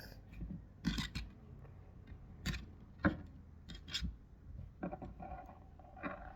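Slime being squeezed and pulled in the hands, making irregular sticky clicks and crackles.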